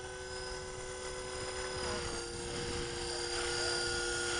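Electric Blade 330X radio-controlled helicopter flying, with a steady whine from its motor and rotors. The whine drops slightly in pitch about two seconds in and grows louder as the helicopter comes closer.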